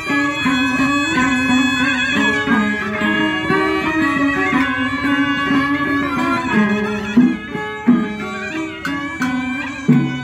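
Vietnamese Cao Đài ritual ensemble music (nhạc lễ hòa tấu): bamboo flute, đàn tranh zither, moon lute and two-string fiddles playing a busy interwoven melody. A few sharp percussion strikes come in the last few seconds.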